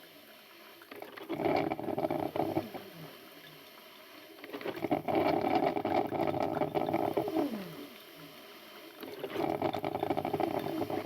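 Electric coffee maker gurgling and sputtering as the hot water bubbles through, in three spells with quieter hissing between them.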